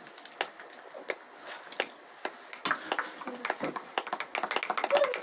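Scattered light clicks and clinks of dishes and cutlery being handled, with faint voices in the background.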